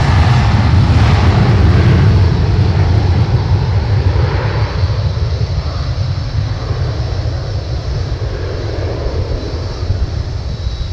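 Jet airliner's engines passing close by with a deep rumble, loudest in the first couple of seconds, then slowly fading as the aircraft moves away.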